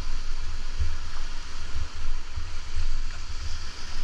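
Surf washing in over the sand at the water's edge, a steady hiss, with wind buffeting the microphone in uneven low gusts.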